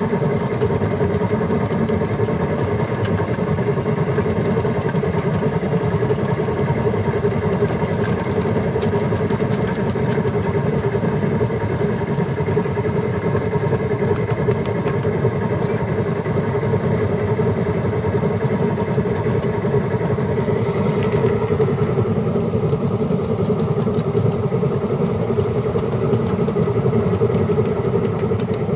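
Battery-powered ride-on miniature steam locomotive running along the track: a steady rumble of wheels on the rails with the electric drive's whine on top. A high whine stops about two-thirds of the way through.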